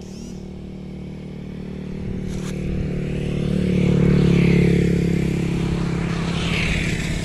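A motorcycle engine running steadily, growing louder to a peak about midway and then fading.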